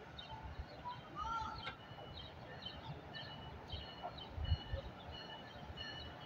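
Small birds chirping: short high notes repeated about twice a second, with a brief rising call about a second in, over a faint background rumble.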